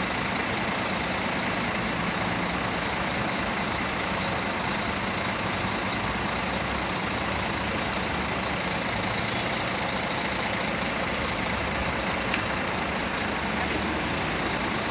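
Heavy diesel machinery running steadily, with a faint steady whine over the engine noise.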